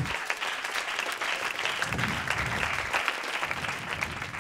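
Small studio audience applauding: dense, steady hand-clapping.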